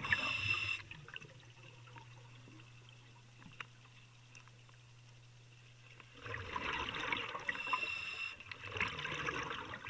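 Underwater, a diver's exhaled air bubbles rushing and gurgling: a short burst at the start, then a quieter stretch with a low steady hum, then a longer burst of bubbling from about six seconds in.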